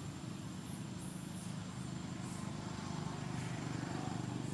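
Steady low engine rumble, like a motor vehicle running.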